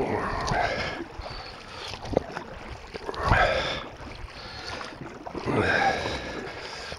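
Oars of an inflatable boat being rowed: a swishing splash of water with each stroke, three strokes about two and a half seconds apart.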